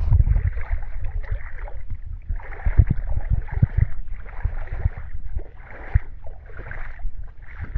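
Footsteps squelching and splashing through waterlogged clay ground and shallow water, about one step a second, over a low wind rumble on the microphone.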